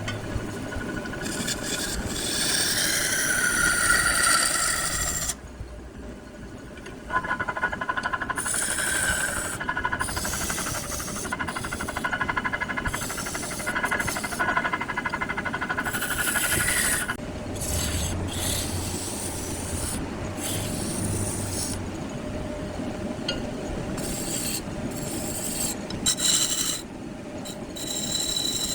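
Wood lathe spinning a wooden block while a turning tool scrapes and cuts into it, a continuous rasping noise over the lathe's hum. The sound changes abruptly several times.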